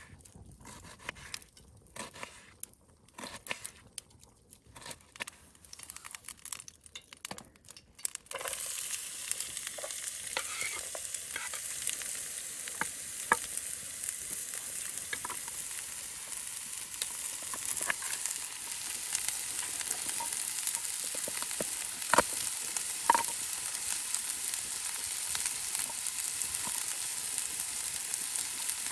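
Light knife taps of an onion being cut on a wooden board. About eight seconds in, chopped onion starts sizzling suddenly in a hot frying pan over a wood fire, a steady frying hiss with occasional sharp clicks and pops.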